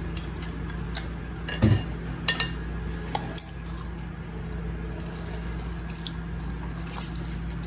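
Hand-held metal lime squeezer being worked: a few short clicks and knocks in the first few seconds, the loudest about a second and a half in, with lime juice dripping into a bowl. A steady low hum runs underneath.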